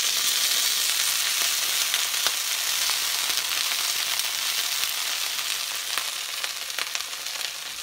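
Kale frying in a hot pan: a steady sizzling hiss with scattered crackles, loudest at the start and easing off slowly toward the end.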